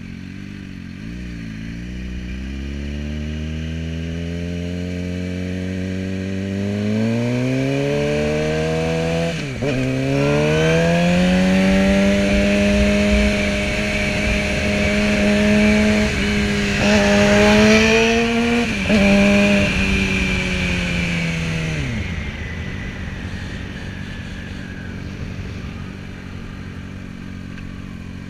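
Sport motorcycle engine accelerating hard, its pitch climbing steadily for several seconds. The pitch drops at a gear change about nine seconds in, then climbs again and holds at high revs with wind rush. About two-thirds of the way through the throttle closes, and the revs fall away to a quieter cruise.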